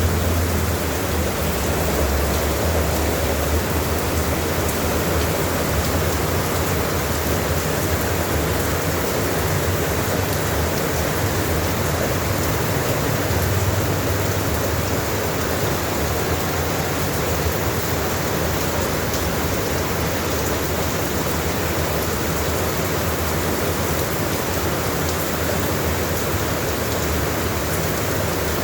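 Heavy rain falling steadily, a dense even hiss with a low rumble underneath and faint scattered drop ticks.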